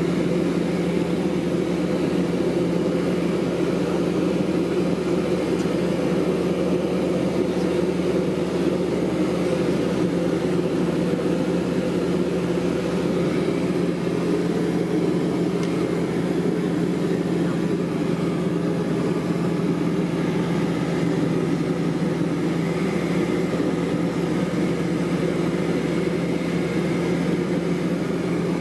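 Single-engine light aircraft's piston engine and propeller running at a steady cruise setting, heard inside the cockpit as an even, unchanging hum.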